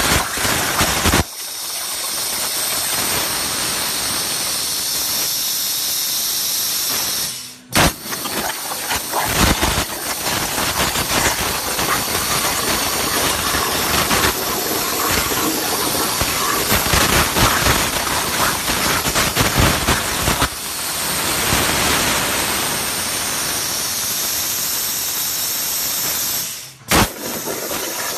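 CNC plasma cutter torch hissing steadily as it cuts through metal plate. The arc stops briefly twice, about seven and a half seconds in and again near the end, and each time comes back with a sharp bang.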